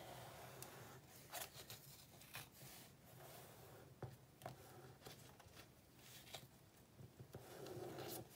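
Near silence with faint scattered taps and paper rustles as hands press and smooth stickers onto a paper planner page.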